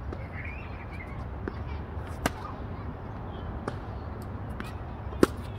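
Tennis ball being struck: two sharp pops of ball on racket about three seconds apart, the second the loudest, with fainter ticks between them, over a steady low rumble.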